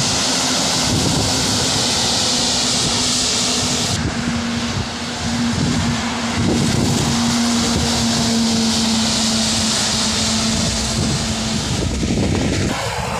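Heavy trucks and a car passing on a rain-wet highway, their tyres hissing loudly through the water on the road, with a steady low hum from the trucks running under it. The first truck is a BharatBenz with a container.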